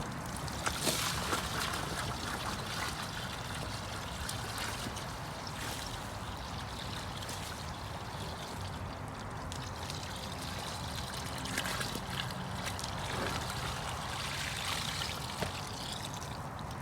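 Shop vacuum with its filter removed running steadily while sucking up standing flood water, the water trickling and gurgling as it is drawn in.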